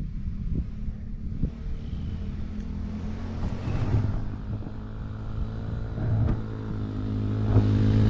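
Motorcycle engine running steadily while riding downhill, with a few short knocks, growing louder over the last couple of seconds.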